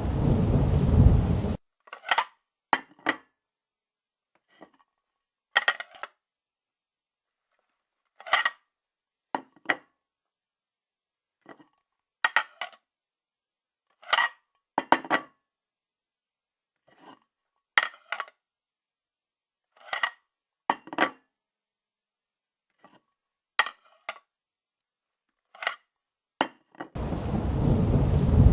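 Dishes and cutlery clinking: about twenty short, separate clinks at irregular intervals with silence between them. A loud rushing noise fills the first second and a half and returns near the end.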